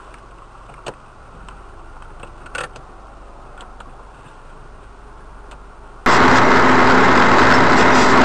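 Faint steady vehicle hum with a few light clicks. About six seconds in, loud car engine and road noise cuts in suddenly, with a steady low drone.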